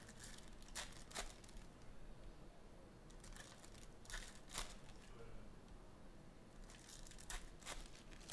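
Faint crinkling and tearing of a foil trading-card pack wrapper opened by hand, in three short spells: about a second in, around four seconds in, and near the end.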